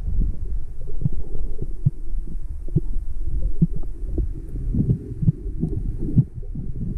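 Underwater sound in a pond, picked up by a submerged camera: a muffled low rumble with irregular soft knocks and thuds from water movement and handling.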